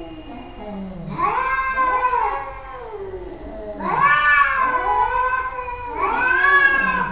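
Domestic cat meowing: three long, drawn-out meows that rise and fall in pitch, starting about a second in, about four seconds in and about six seconds in.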